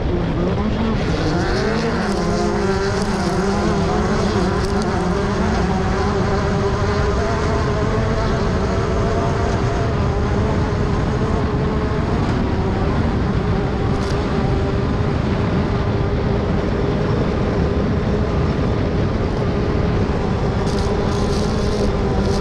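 Class 10 off-road race car's engine running hard, its revs dipping and climbing a few times in the first few seconds, then held steady at high revs.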